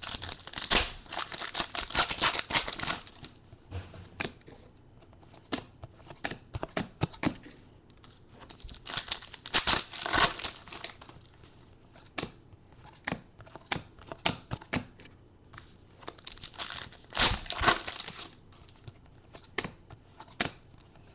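Foil trading-card pack wrappers being torn open and crinkled by hand, in three bursts, with small clicks of cards being handled between them.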